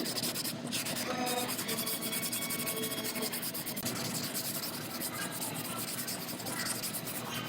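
Sanding on the repaired sheet-metal cab corner of a pickup: a steady scratchy rub made of fast, even strokes.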